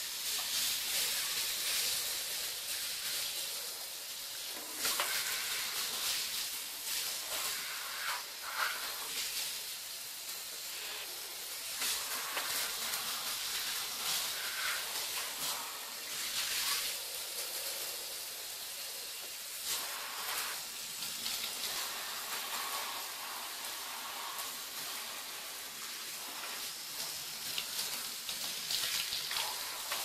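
Water spraying from a handheld shower head onto the bottom of a bathtub and its rubber bath mat: a steady hiss of spray that swells briefly now and then.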